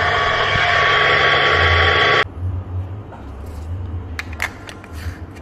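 Electric espresso grinder running, grinding coffee into a portafilter, then cutting off suddenly about two seconds in. After it stops come a few light metal clicks and knocks as the portafilter and a distribution tool are handled.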